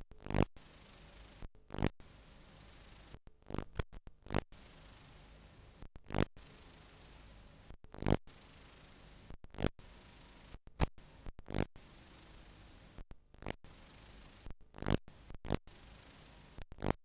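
Hiss from a blank or damaged stretch of analogue videotape, broken about once a second by brief dropouts, each followed by a pop or crackle.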